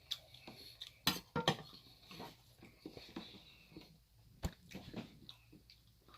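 Eating sounds: cutlery clinking against a dish a few times, sharpest about a second and a half in and again past the middle, with soft chewing and handling noises between.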